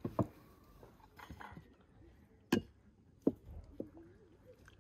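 Three sharp clicks of a spoon knocking against bowls at a table: one just after the start and two more about halfway through, over faint murmuring voices.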